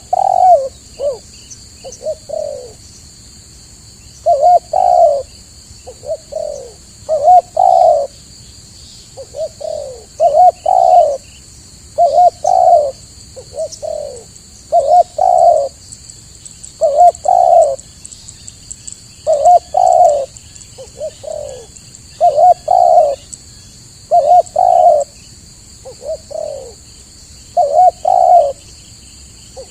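Spotted doves (tekukur) cooing over and over, loud short phrases of a few falling notes every second or two.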